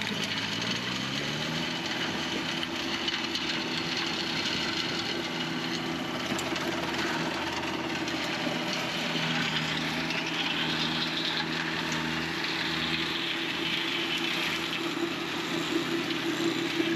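John Deere 1025R compact tractor's three-cylinder diesel running with its flail mower working. The engine speeds up over the first second or two, then holds a steady pitch.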